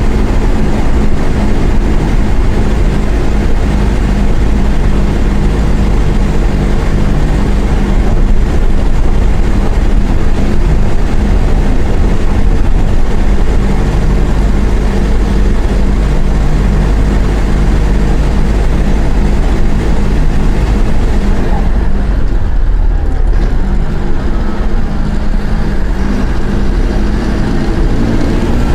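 Mercedes-Benz OF-1418 bus's six-cylinder diesel engine running under way, its pitch shifting as it pulls through the gears. About three-quarters through, the higher part of the sound drops away for a few seconds before the engine comes back.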